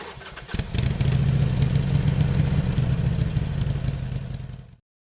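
Harley-Davidson motorcycle's V-twin engine running with a low, rapid pulsing note. It comes in loud about half a second in and cuts off abruptly near the end.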